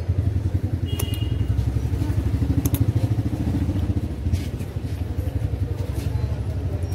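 A motor vehicle's engine running close by: a steady low rumble with a fast throb, a little louder in the middle and easing off later.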